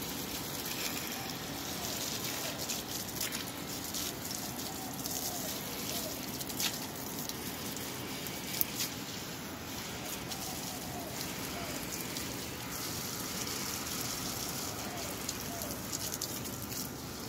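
Garden hose running, its water splashing steadily onto potted plants and soil with a rain-like patter, and a single sharp tap about halfway through.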